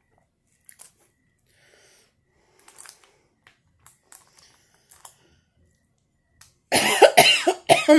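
Faint mouth clicks and smacks of a person eating, then near the end a loud fit of about three coughs, the last trailing off in a falling voice.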